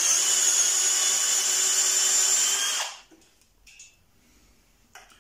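Parkside X12V Performance brushless cordless drill driver running steadily for about three seconds, boring a 22 mm spade bit into solid pine, then stopping suddenly. The 22 mm bit is beyond the maker's stated 19 mm maximum in wood, so the drill is working near its limit.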